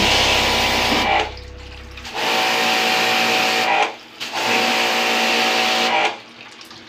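Hiss of a pressure-washer water jet spraying an air-conditioner's evaporator coil, over background music. The spray stops three times, briefly about a second in, again near four seconds, and near the end.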